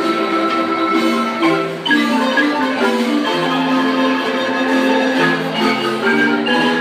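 Two large wooden marimbas played together by several players, with a melody in held, rolled notes over a steady bass line.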